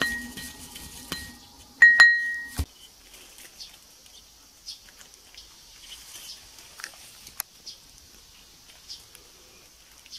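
Wooden pestle grinding in a ceramic suribachi mortar: a low rubbing drone with ringing clinks of the bowl, loudest about two seconds in, that cuts off abruptly. The rest is faint scattered ticks.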